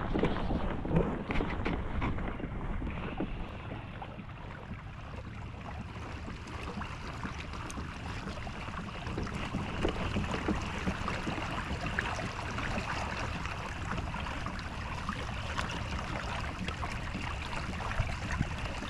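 Water lapping and rippling against a kayak hull, with wind on the microphone and a few light knocks in the first seconds.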